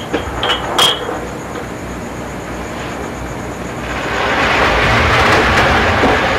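A few light clinks of ceramic mugs in the first second, then the steady whoosh of an electric fan that grows louder about four seconds in.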